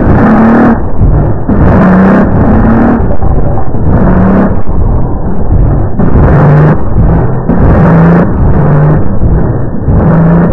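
Loud, heavily distorted electronic soundtrack: short steady low tones that step up and down in pitch, over a rough noisy rumble, with bursts of harsh noise about every two seconds.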